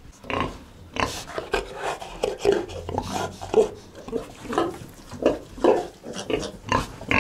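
A sow and her piglets grunting and squealing in a pen, short calls repeating two or three times a second.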